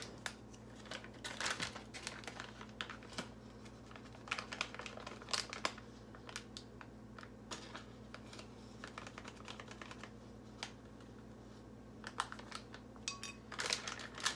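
Faint, irregular light clicks and rustles as a teaspoon, spice container and small paper packet are handled over a ceramic plate.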